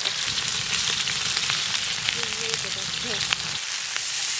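Onions and green chillies sizzling in hot oil just after going in: a steady frying hiss with scattered small crackles.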